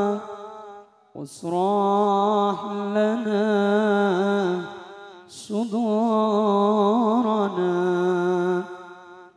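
Solo male voice singing a sholawat, an Islamic devotional song, unaccompanied in long melismatic phrases with wavering ornaments. One phrase dies away at the start, then two long phrases follow with short pauses for breath between them.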